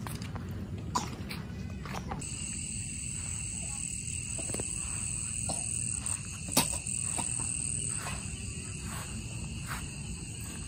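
Night insects chirring steadily in several high-pitched bands, starting abruptly about two seconds in, over a low rumble. A single sharp click about six and a half seconds in.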